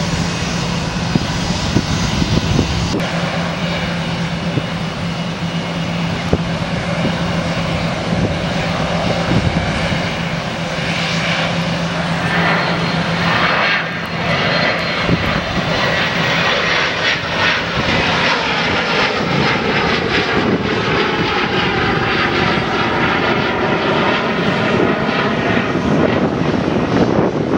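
Jet aircraft engines running loud and steady, with a low engine hum that fades out past the middle. A jet then passes and climbs away, its whine falling in pitch.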